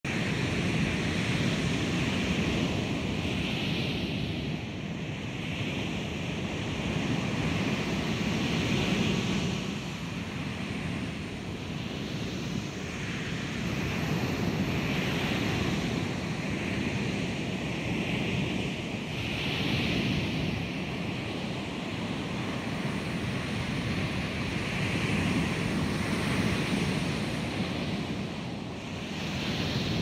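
Ocean waves crashing on a shore, one surge overlapping the next every two to three seconds in a continuous wash of surf. The crashes are sampled recordings, each placed left, right, near or far in a 3D sound mix.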